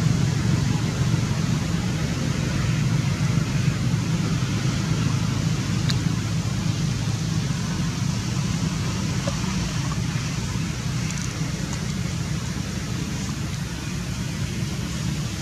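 Steady low rumbling background noise with an even hiss over it, easing off slightly over time, and one faint click about six seconds in.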